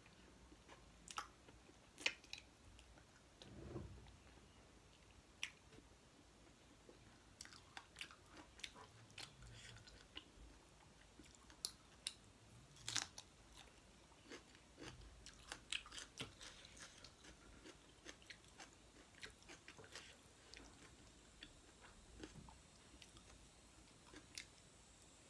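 Faint close-up eating sounds of a person chewing rice and pork curry eaten by hand: soft chewing with scattered wet mouth clicks and smacks. The sharpest clicks come about two seconds in and again about halfway through.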